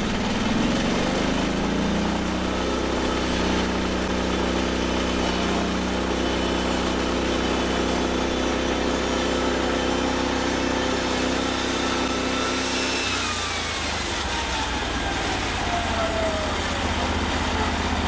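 Norwood HD36 portable band sawmill's gas engine revving up and running steadily under load as the band blade saws through a post oak log; about two-thirds of the way through, the engine note drops and a whine slides down in pitch as it comes off the cut. The blade doing the cutting is judged well past due for replacement, binding and scraping in the wood.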